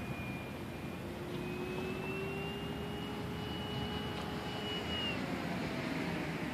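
Parkzone P-47 Thunderbolt RC plane's brushless electric motor and propeller whining in flight. It holds a high, slightly rising pitch, then drops in pitch about five seconds in.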